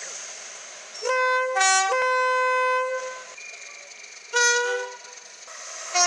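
Two-tone train horn sounding in short blasts: a high note then a lower one, a held high note of about a second, and a quick high–low pair again about four seconds in.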